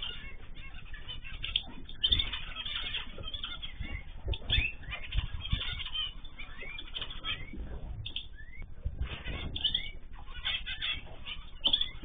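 A mixed aviary of small cage birds (cockatiels, zebra finches, canaries and goldfinches) chirping and calling over one another in short, often rising notes. Wings flutter with soft low thumps now and then.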